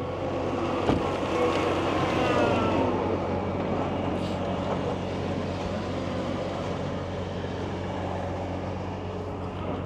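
Heavy machinery engine running with a steady low hum. Its pitch rises and falls for a couple of seconds near the start, as if revving under load, and there is a single knock about a second in.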